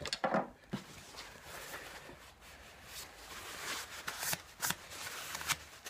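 A cloth rubbing and rustling as it wipes a freshly sharpened steel plane blade held in a sharpening guide, with a few light clicks and knocks of handling.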